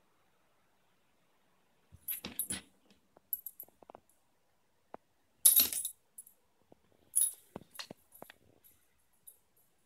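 Metal tags on a small dog's collar jingling in a few short spells as the dog moves and pokes about, the loudest a little past halfway, with light ticks between.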